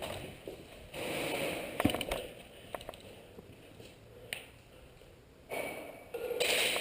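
A person breathing hard close to the microphone, in long noisy breaths with quieter gaps between them, and a couple of sharp clicks.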